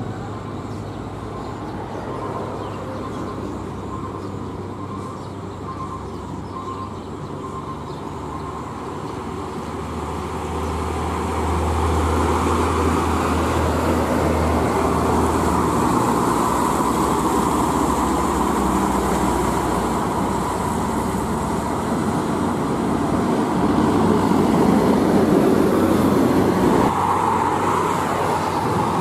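Heavy diesel truck engine running as a Mitsubishi Fuso The Great FP truck pulls away and passes close, over steady road traffic noise. It gets louder about ten seconds in and changes abruptly near the end.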